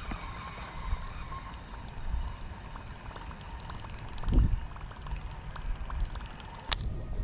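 Light splashing and trickling of water from a topwater bass lure being worked across the pond surface. There is a dull thump about four seconds in and a sharp click near the end.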